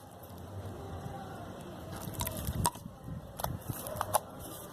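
Faint handling noises: a few light clicks and taps over some low rumbling in the middle.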